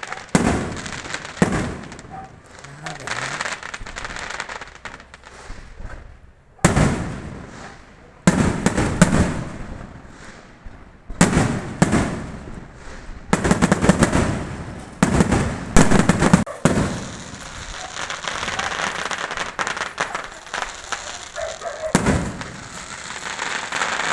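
Fireworks going off: a series of sharp, loud bangs, each trailing off, coming in irregular clusters. From about two-thirds of the way in they give way to a dense, continuous crackle, broken by one more bang near the end.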